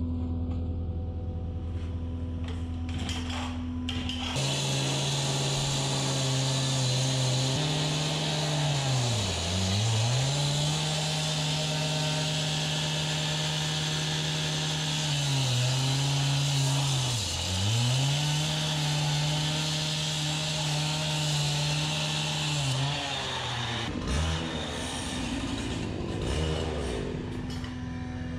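Handheld cut-off saw cutting through a sheet of steel plate. A steady running tone comes first, then the loud grinding of the cut from about four seconds in until near the end. The saw's pitch sags and recovers twice as the blade loads up in the cut.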